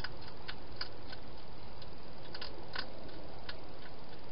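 Hedgehog chewing food at a feeding bowl: irregular sharp clicks, about ten, over a steady hiss.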